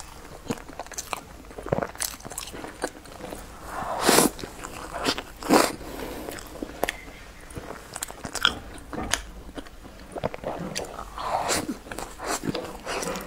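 A person biting and chewing pieces of dark brown bread close to the microphone: a run of sharp, crisp bites and chewing sounds, the loudest bites about four and five and a half seconds in.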